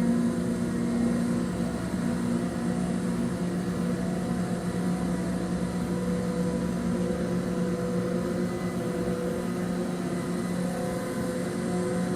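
Steady drone of a ship's or tender boat's engines running at a constant pace: an even low hum with several fixed tones over a rumble, with no change in speed.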